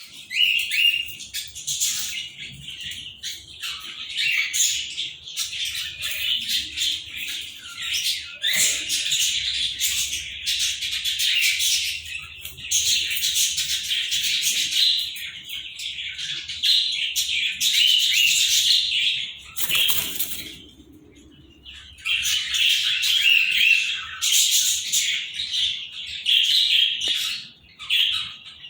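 Pair of Indian ringneck parakeets chattering and calling almost without a break, with a short pause about twenty seconds in.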